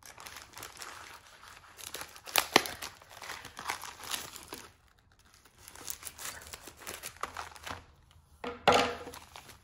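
Scissors cutting open a metallic foil bubble mailer and the foil-plastic envelope crinkling as it is handled, with a pair of sharp crackles about two and a half seconds in and another loud burst of crinkling near the end.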